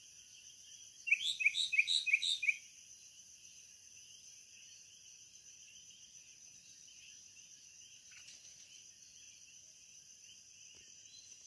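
A bird sings a short, loud phrase of about six quick repeated notes, each with an upward hook, about a second in, over a steady high-pitched chorus of night insects.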